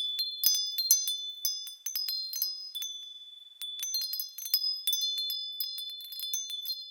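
Wind chimes struck irregularly in quick clusters, their high-pitched tones ringing on after each strike. About three seconds in, the strikes pause for a moment and the ringing fades, then the chiming picks up again.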